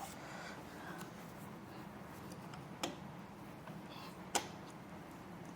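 Two sharp clicks, about a second and a half apart, with a few fainter ticks, as gaming-chair parts are handled during assembly, over a low steady hum.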